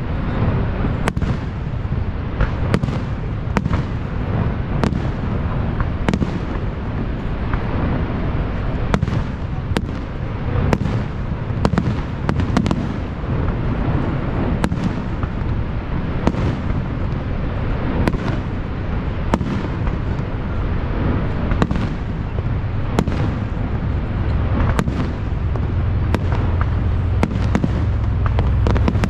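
Fireworks display: aerial shells bursting in a quick irregular series of sharp bangs, about one to two a second, over a steady low rumble.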